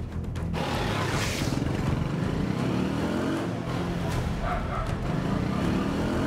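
Motorbike engine revving up about half a second in, its pitch climbing as it accelerates.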